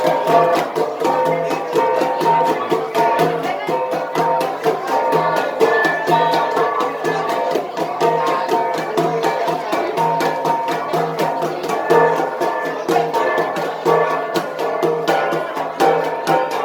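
Igorot gangsa ensemble, flat hand-held bronze gongs beaten in a fast, steady interlocking rhythm, their ringing tones sounding over one another.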